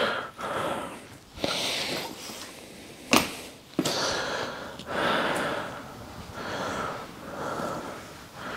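A man breathing in and out through his nose in slow, audible breaths, with one sharp knock a little after three seconds in.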